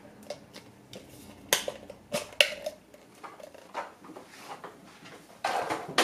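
Plastic dust cup and cyclone filter parts of a MOOSOO K17 cordless stick vacuum being handled and pulled apart: scattered sharp plastic clicks and knocks, with a louder rattle near the end. The vacuum motor is off.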